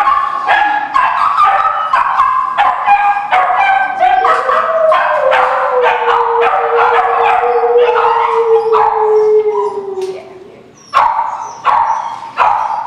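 Several shelter dogs barking and yipping rapidly in their kennels, with one dog holding a long howl from about four seconds in that slowly sinks in pitch until about ten seconds in. The barking drops off briefly, then starts again near the end.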